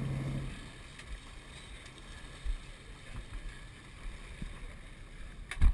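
Wind and sea noise on a sportfishing boat. A low hum in the first half second drops away to a quieter steady wash, and there is one sharp knock near the end.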